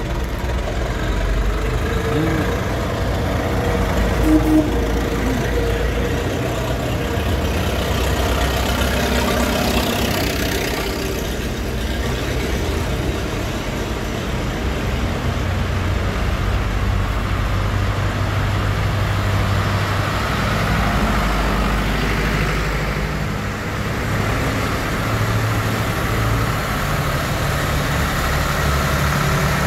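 Engines of several vintage farm tractors running at low speed as they drive slowly past in a line.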